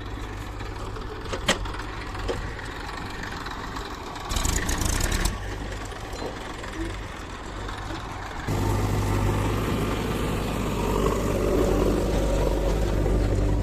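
Heavy diesel machinery engine running steadily at a low pitch, with a sharp click early and a short burst of rushing noise about four seconds in. About eight seconds in the engine grows clearly louder and fuller, as if put under load or revved.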